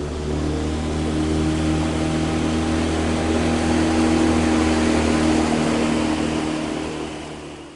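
Yamaha T8 four-stroke outboard motor running at planing speed, a steady engine note that grows louder as the boat passes close by, then fades away near the end.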